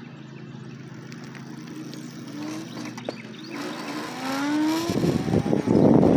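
Electric motor of a Jetson Bolt Pro e-bike running on an upgraded 72-volt controller, humming low and then whining up in pitch as it accelerates. About five seconds in, loud wind rush over the microphone takes over as speed builds.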